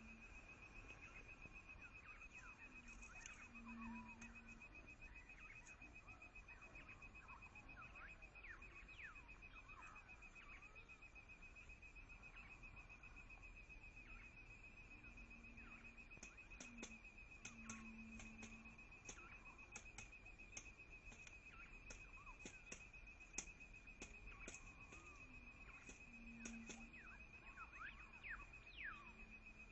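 Faint outdoor bird-and-insect ambience. A steady high-pitched insect trill runs on one pitch, with many brief, sharp, high bird chips and whistled notes scattered through it, growing busier after about the middle. A few short low tones come and go.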